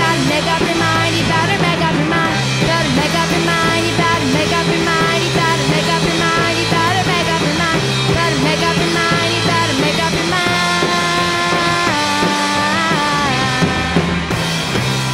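Rock band playing live, mostly instrumental, with a bass line under electric guitar and drums. Past the middle, long held notes step in pitch and bend.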